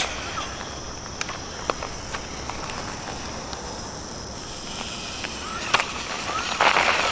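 Outdoor ambience with a steady high insect drone from crickets. A few faint clicks and a louder swell of rustling noise come near the end.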